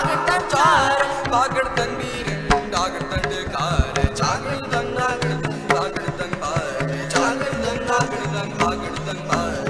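Instrumental Sikh kirtan music: a bowed dilruba plays a wavering melody over a sustained harmonium and a busy tabla rhythm with deep bass strokes.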